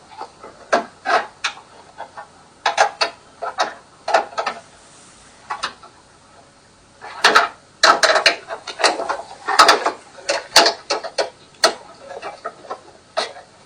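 Irregular clicks and knocks from hand work fitting a carbon fiber rear diffuser, with screws being driven and tightened, busiest in a dense run of loud knocks about halfway through.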